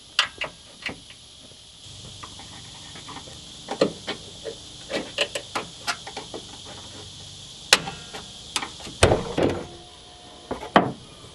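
Scattered clicks and knocks of hands and tools working at a pickup truck's raised hood, with a heavier thump about nine seconds in.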